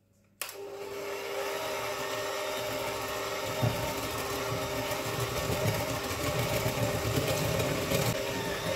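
Red KitchenAid electric hand mixer with a whisk attachment switched on about half a second in, then running steadily with a constant hum as it beats flour and cocoa into cake batter in a glass bowl. A couple of brief knocks sound near the middle and near the end.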